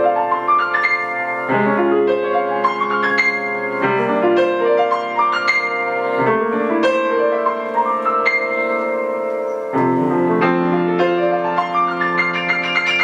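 Solo piano playing a flowing piece of struck chords over held bass notes, with high treble notes ringing above. Near the end a fast, glittering run of quick treble notes begins.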